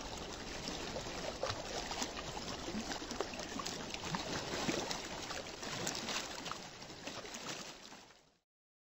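Flowing water, a brook's steady babble with small splashes and drips, fading out near the end.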